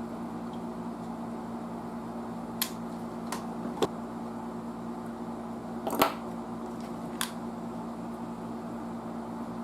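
About five sharp clicks and taps of small hand tools on the amplifier chassis as replacement capacitors are wired in, the loudest about six seconds in, over a steady low hum.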